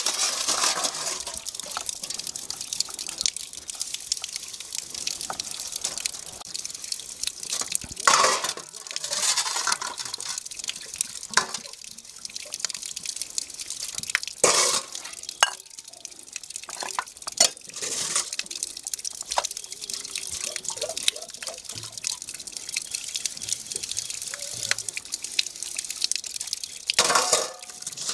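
Stainless steel plates and bowls being washed by hand: water splashing and dripping as they are scrubbed and rinsed, with now and then a few louder moments as the steel dishes knock together.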